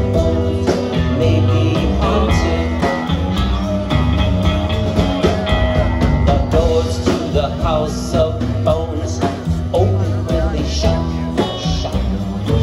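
Live band playing: upright bass, drum kit, acoustic guitar and electric guitar together.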